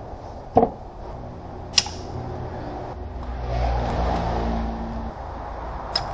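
Hand work in a car's engine bay: a sharp knock about half a second in, then two short metallic clicks, over a steady low rumble that swells for a couple of seconds in the middle.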